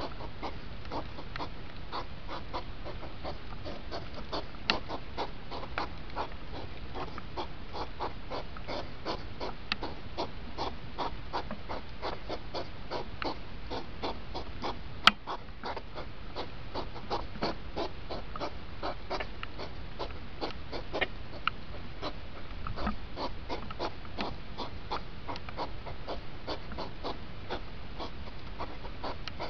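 Hedgehogs courting during the rut, snorting in a rapid, rhythmic series of short huffs, with one sharp click about halfway through.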